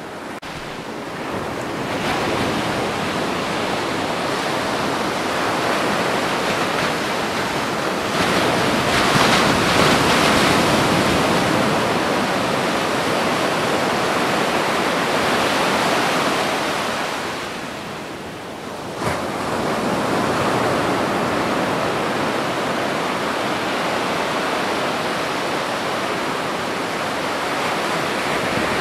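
Small waves washing against a rock breakwater, mixed with wind rushing over the microphone: a steady, even rush that swells for a few seconds about a third of the way in and eases briefly about two thirds through.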